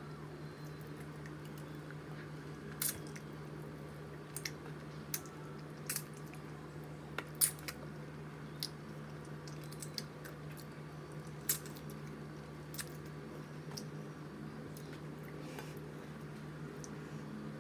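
A person eating grilled chicken by hand close to the microphone: scattered lip smacks and chewing clicks, about a dozen, over a steady low hum.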